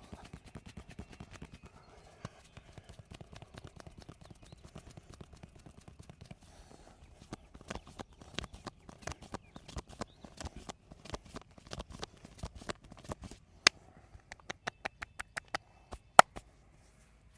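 Percussive hand massage: the masseur's hands slap and tap the body in quick rhythm, growing louder about halfway through to about three strokes a second. Two single sharp snaps, much louder than the rest, come near the end.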